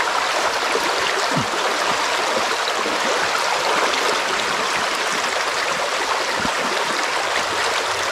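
Creek water running steadily, an even rushing hiss without a break.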